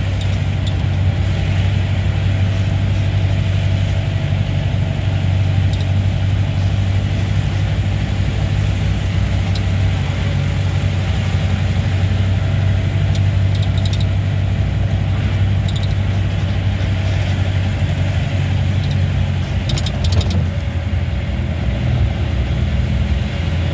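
Safari jeep's engine running steadily under way on a rough dirt track, heard from inside the cabin as a loud, even low drone. A few short clicks and rattles from the vehicle body come through now and then.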